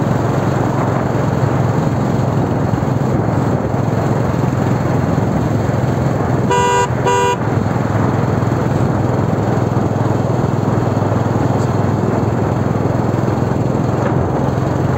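Steady engine and road noise from a moving vehicle. A vehicle horn gives two short toots in quick succession about seven seconds in.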